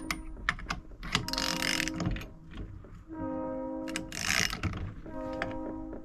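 Hand tools clicking and ratcheting as the flywheel puller's centre bolt is cranked in against a held wrench to pull the Suzuki DR200 magneto rotor off its crankshaft taper, with two longer strokes of the tool.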